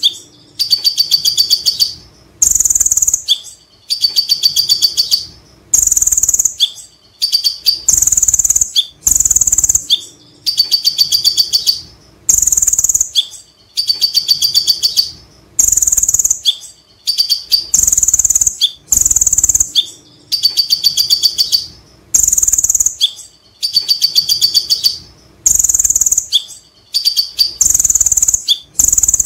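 Male kolibri ninja (konin) sunbird singing in a steady repeating phrase about every one and a half seconds. Each phrase is a loud, high burst followed by a fast, rattling chatter ('ngekek') that runs on into a trill ('cililin').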